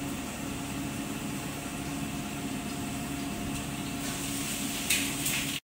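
Steady machine hum, with a few brief noises about four to five seconds in.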